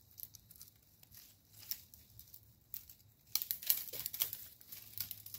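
Dry crinkling and rustling, a few scattered crackles at first, then a dense run of them for about a second and a half near the end.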